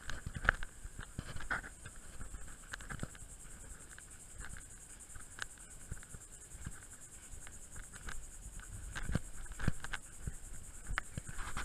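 Footsteps on a leaf-covered woodland trail, with irregular soft thuds and rustles, over a steady high insect buzz.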